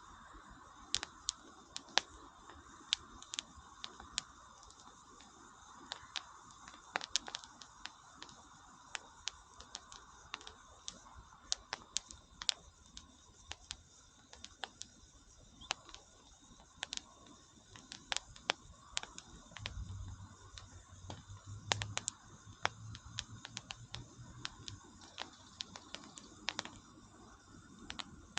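Wood campfire crackling, with irregular sharp pops and snaps from the burning wood over a faint steady hiss.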